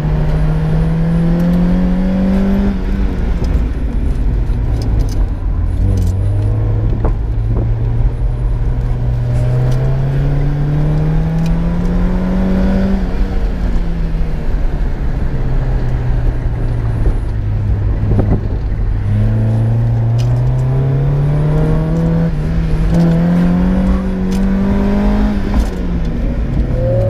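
A 1995 Mazda Miata's 1.8-litre four-cylinder engine, breathing through a test pipe and an OBX aftermarket muffler, heard from inside the car during a hard autocross run. The engine pitch climbs and falls three times as it revs up and eases off between cones, then drops away near the end as the run finishes.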